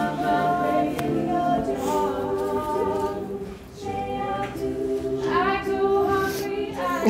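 Vocal music: voices singing long held notes in harmony, with little accompaniment.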